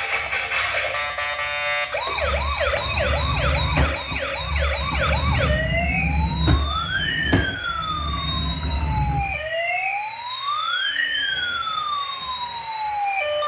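Toy emergency vehicle's electronic siren. A short electronic jingle gives way about two seconds in to a fast yelp of quick rising sweeps. A few seconds later it switches to a slow wail rising and falling.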